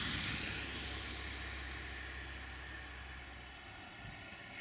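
Distant engine rumble with a hiss, slowly fading away; the low hum drops out about four seconds in.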